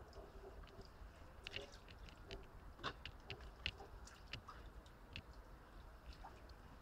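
Near silence with faint, irregular small clicks and ticks scattered over a low rumble.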